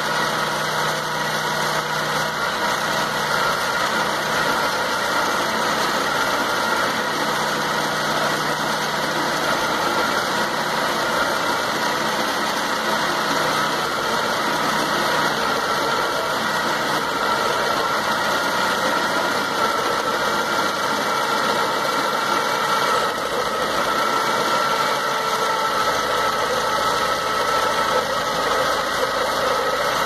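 Dodge Stratus 2.0 engine idling steadily, with the misfire apparently gone after a leaking spark plug wire was wrapped in electrical tape.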